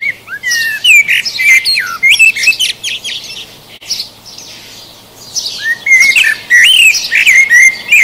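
Male Eurasian blackbird singing: two phrases of fluting, warbling notes mixed with higher, thinner notes, about three seconds apart.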